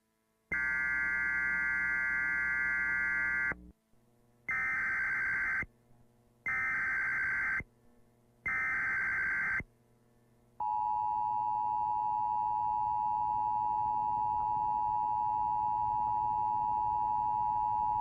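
Emergency Alert System broadcast signalling: bursts of harsh digital data tones, a longer one of about three seconds, then three short ones about a second apart (the SAME header), followed about ten seconds in by the steady two-tone EAS attention signal, which holds to the end.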